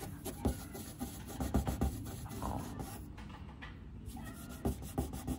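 Cloth rubbed in short, uneven strokes over car paint, wiping off superglue softened with WD-40.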